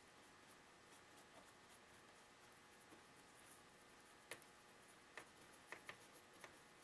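Near silence: room tone with a few faint, light clicks near the end.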